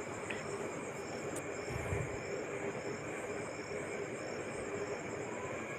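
Quiet steady hiss of a gas burner flame under an aluminium pressure cooker, with chicken and masala cooking inside under a loosely closed lid. Faint high chirps repeat about twice a second throughout.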